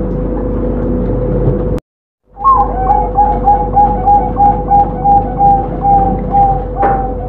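Zebra dove (perkutut) song: after a brief dropout about two seconds in, a fast, even run of short repeated coo notes, about three a second, over a steady background hum and noise.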